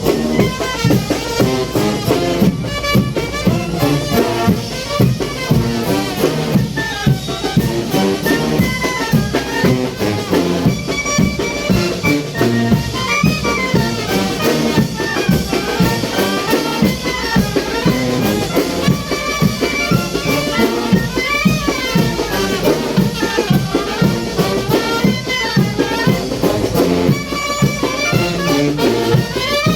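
Mexican brass band (banda de viento) playing chinelo dance music: trumpets and other brass carry the tune over a steady drum beat.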